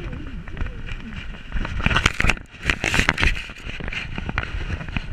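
Rubbing and knocking picked up by a GoPro strapped to a small dog, as the camera is jostled while the dog moves and tumbles in the grass. It is a rough, crackling clatter that grows busiest about halfway through.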